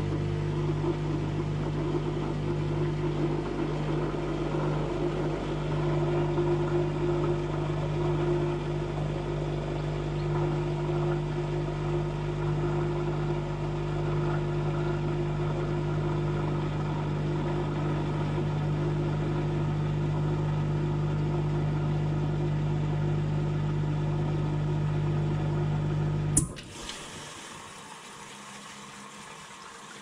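Old front-loading washing machine running with a steady mechanical hum. About 26 seconds in, a sharp click and the hum cuts off, leaving a much fainter sound.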